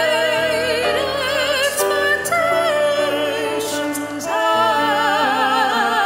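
Classical-style vocal duet, a woman's and a man's voice singing with wide vibrato over grand piano accompaniment. The singing breaks briefly about four seconds in, then resumes on a new phrase.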